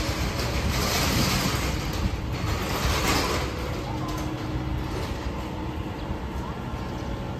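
A vehicle passing on a cobblestone street: its noise swells over the first few seconds and then fades, over a steady low street rumble.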